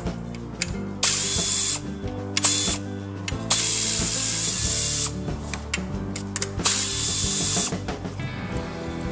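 Cordless drill-driver running in four short spurts, backing out a bracket bolt.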